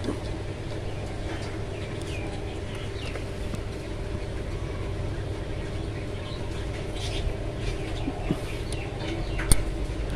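Sewing-machine motor running with a steady hum, with birds chirping in the background and a sharp click near the end.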